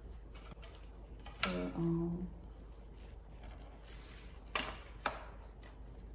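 Plastic handling and clicks as a white plastic tray is fitted onto a mini sewing machine's arm, with two sharp clicks about half a second apart near the end as it goes into place. A short hummed vocal sound comes a second and a half in.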